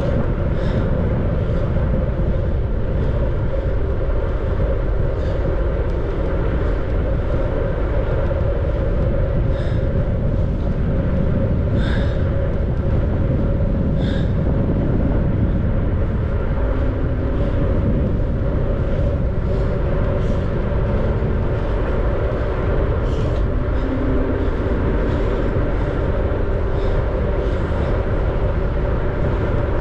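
Steady rush of wind on the microphone and tyres rolling on pavement while riding a bicycle, with a constant hum and a few faint ticks scattered through.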